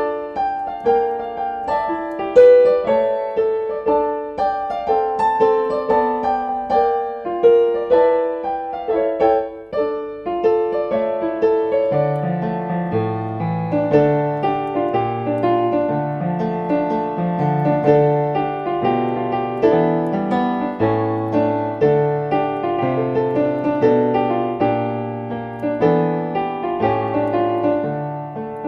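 Instrumental blues tune played on piano. The melody and chords sound alone at first, and about twelve seconds in a low bass line joins under them.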